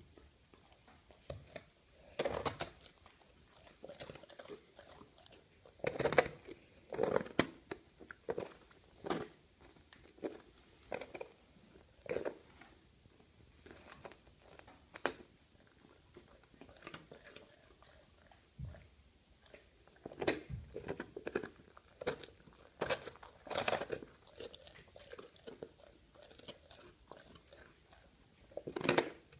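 Cane Corso dog chewing and biting into crusty bread, with irregular crunches of the crust, some loud, and quieter gnawing in between.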